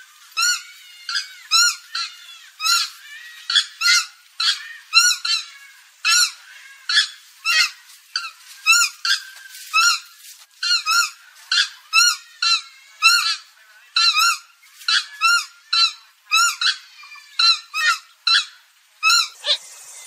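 Purple gallinule calling: a rapid series of short, high-pitched call notes, about two a second, with a few quicker, fainter runs of notes in between.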